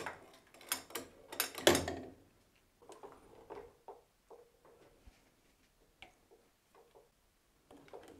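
Steel screwdriver levering rubber V-belts off a lathe's multi-groove spindle pulley. A quick string of sharp metal clicks and knocks comes in the first two seconds, the loudest near the two-second mark. A few fainter taps and scrapes follow, then only an odd tick.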